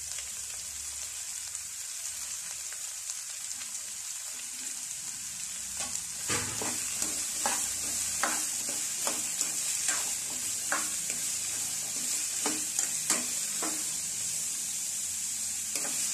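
Diced radish sizzling in hot oil in a nonstick kadai, a steady hiss, freshly added and starting to sauté. From about six seconds in, a spatula stirs it, scraping and knocking against the pan in strokes about once a second.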